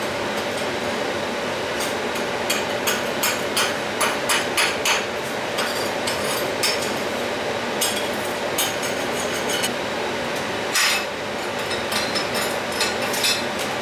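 Stick-welding arc from a 3.25 mm basic electrode on a Weldkar 1630 inverter: a steady sizzling hiss broken by many sharp crackles and pops that come in irregular runs. Basic electrodes strike poorly, above all on a restart.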